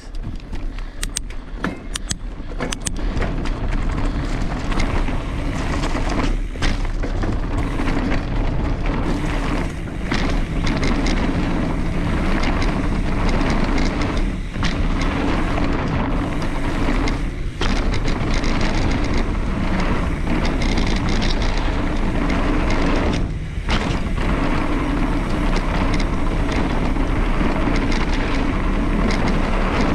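Wind rushing over the camera microphone as a mountain bike is ridden downhill, with the rattle and clatter of the bike and tyres on the rough trail. It builds over the first few seconds, then stays loud and steady.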